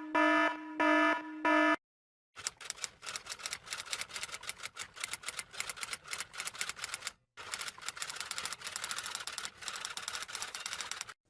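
A short electronic beeping tone pulses about four times and stops within the first two seconds. After a brief silence comes a long run of rapid, irregular key clicks like fast typing, broken once by a short pause midway.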